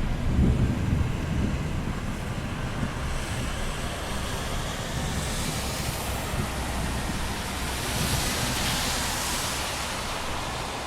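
City thunderstorm: a low rumble of thunder right at the start, then steady rain hiss that swells twice, around the middle and again near the end.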